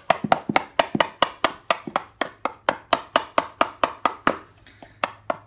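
Wood chisel knocked rapidly into a wooden door jamb, about five sharp knocks a second, with a short pause near the end before a couple more. It is cutting the jamb so a hinge leaf sits flush.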